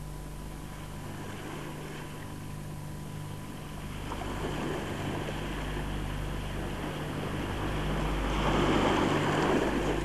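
Sea water sloshing and lapping, growing louder from about four seconds in and peaking near the end, over a low steady hum.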